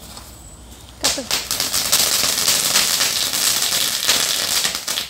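A ground fountain firework (flower pot) catches about a second in and sprays sparks with a loud, steady crackling hiss.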